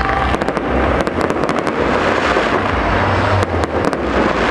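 Aerial fireworks bursting and crackling, with clusters of sharp rapid crackles near the start, about a second in, and again late on, over a constant dense rumble of shell explosions.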